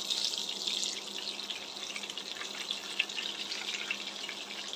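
Whole boiled eggs frying in hot oil in a kadai: a steady sizzling hiss with scattered pops and crackles. It is louder in the first second, then settles.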